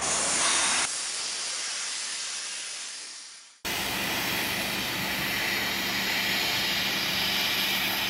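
Steady hissing noise with a low engine hum underneath. It fades away over the first few seconds, then comes back abruptly about three and a half seconds in.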